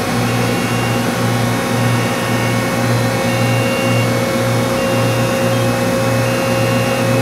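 Powered-up CNC lathe humming steadily, a low throb pulsing about twice a second under a constant mid-pitched tone.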